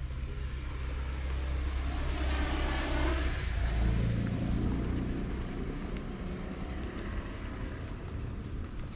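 A car driving past: its noise builds to a peak about three to four seconds in, the engine and tyre note dropping in pitch as it passes, then fades away over a steady low traffic rumble.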